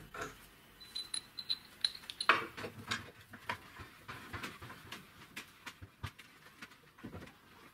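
Light clinks and knocks of small steel parts being handled. About a second in there are a few short, high metallic pings, and a sharper knock comes a little past two seconds.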